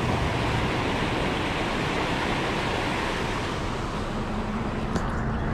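Steady rush of a shallow rocky creek running over rapids, mixed with traffic on a wet road; a low engine hum joins near the end as a car drives past.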